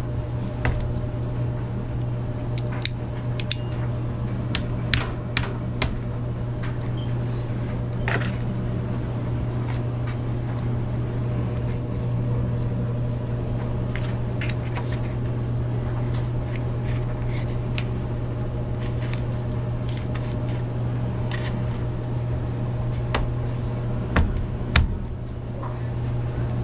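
Light clicks and taps of a trim strip being handled and pressed into place against an air handler's sheet-metal cabinet, with two heavier knocks near the end. A steady low hum runs underneath throughout.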